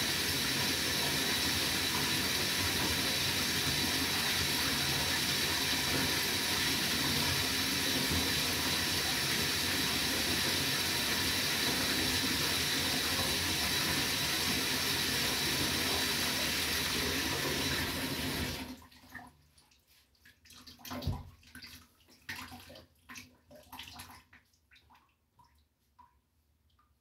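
Water running steadily from a tap into a bath, shut off suddenly about two-thirds of the way through. Afterwards come scattered drips and small knocks, one louder knock among them.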